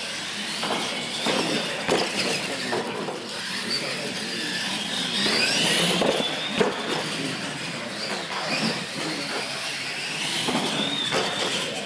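Radio-controlled monster trucks racing on a concrete floor: their electric motors and gears whine, rising and falling in pitch with the throttle. A few sharp knocks come as a truck hits and lands off a ramp, the loudest about six and a half seconds in.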